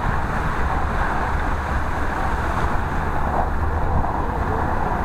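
Dodge van driving along a flooded road strewn with hailstones: a steady hiss of tyres through water and slush over a low rumble of engine and road.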